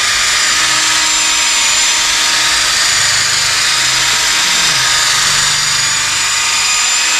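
DeWalt cordless drill running steadily with a foam polishing pad spinning against a plastic headlight lens, a constant high whine as the headlight restoration compound is worked in with multiple passes.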